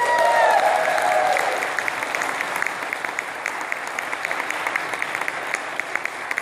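A congregation applauding, with a loud rising whoop of cheering at the start and many hands clapping that slowly fade.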